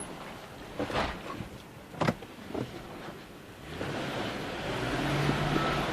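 Car rolling slowly with a window down: tyre and road noise with two sharp knocks about one and two seconds in, growing louder from about four seconds in with a low hum. The brakes, just fitted with new pads to cure a squeal, give no loud squeal.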